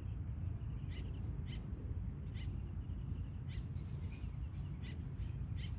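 Songbirds chirping, short sharp chirps repeated every second or so, with a brief burst of higher twittering a little past the middle. A steady low rumble sits underneath.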